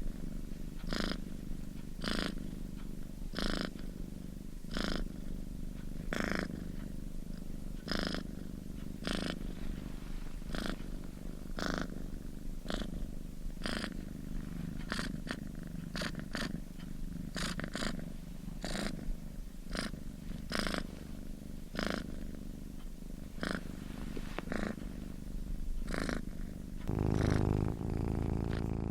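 Domestic cat purring close up: a steady low rumble that swells in a regular rhythm about once a second, with each breath in and out. Near the end it grows louder.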